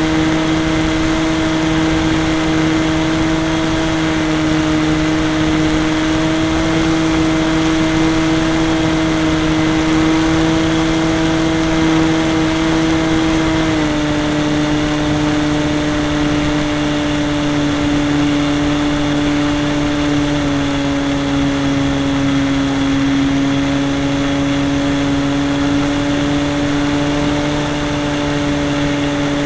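A radio-controlled model airplane's motor and propeller, heard from on board, running at a steady pitch in flight. The pitch drops a little about 14 seconds in and again about 20 seconds in as the throttle is eased back.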